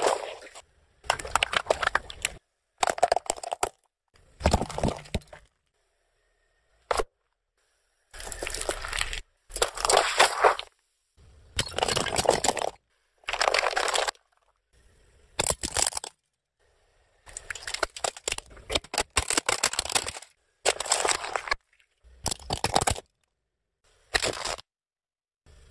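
A car tyre rolling over and crushing small toys and crunchy objects, heard as about fifteen separate bursts of cracking and crunching, each a second or so long with silence between them.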